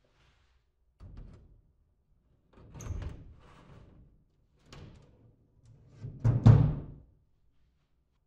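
Aluminium-framed polycarbonate lid panels of a JUWEL Biostar 1500 cold frame knocking and rattling against the frame's aluminium rails as they are fitted. There are four separate knocks, the loudest a heavy thunk about six and a half seconds in.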